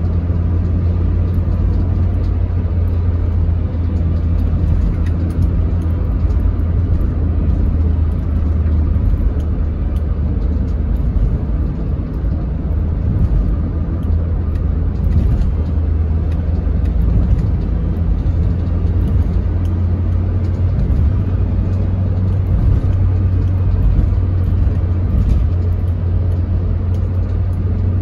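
Steady road and engine noise inside a car's cabin while driving at highway speed: an even low rumble.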